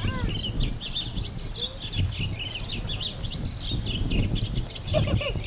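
Small birds chirping in a quick, continuous twittering, over a low rumble.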